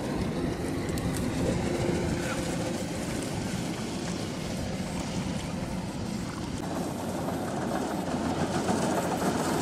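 A rice combine harvester's engine running steadily in the distance, a low continuous rumble with a faint steady hum in it.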